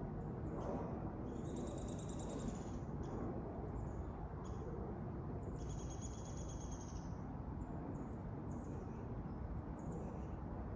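Small birds chirping, with two longer trilled calls, one about a second in and one around the middle, over a steady low rumble.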